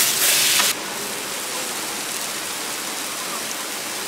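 Meat frying in a pan, a steady sizzle that is loud at first, then drops sharply to a quieter, even sizzle under a second in.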